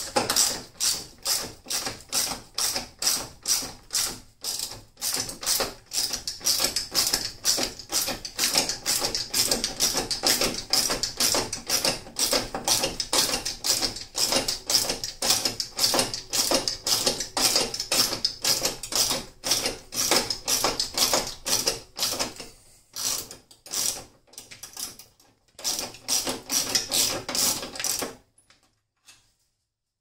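Hand socket ratchet clicking in steady back-and-forth strokes, about two a second, turning tight, rusty screws; the clicking stops a couple of seconds before the end.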